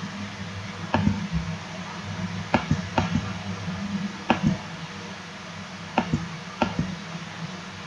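Computer mouse clicking: about six short, sharp clicks at irregular intervals, over a low steady hum.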